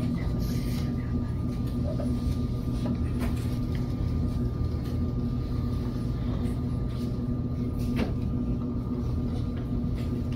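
Electric potter's wheel running at a steady speed: a constant motor hum, with a few faint knocks as wet clay is handled.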